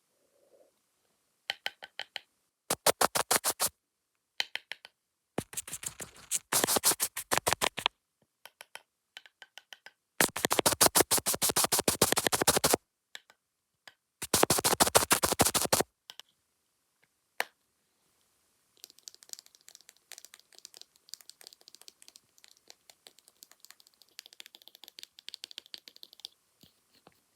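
Fast ASMR tapping on a camera lens or screen: bursts of rapid, sharp taps, each lasting one to two seconds, with short silent gaps between them. Near the end the sound turns into a quieter, denser spell of rapid scratching and brushing.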